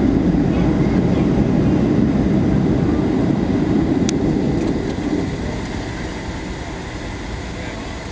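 Jet airliner cabin noise during the landing rollout: a loud, deep rumble of engines and runway roll that eases off about five seconds in as the plane slows. A single sharp click sounds about four seconds in.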